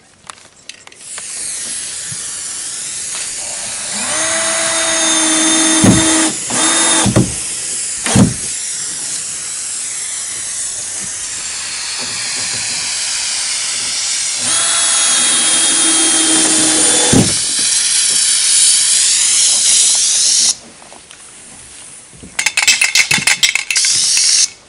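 Aerosol spray paint can spraying in a long, steady hiss, at times with a whistling tone from the nozzle. Near the end there are a couple of seconds of rapid rattling.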